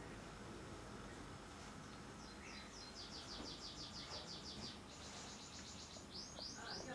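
Young cockatiel chicks begging: a fast run of short, high chirps, about seven a second, from a little after two seconds in, then a brief steady high rasp and three quick squeaks near the end.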